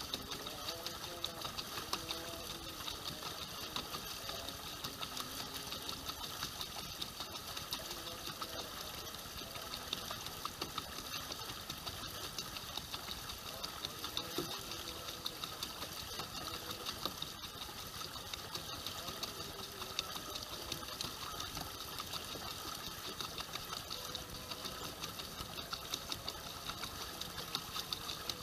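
Small boat's motor running steadily, a fast even mechanical hum, with faint voices in the background.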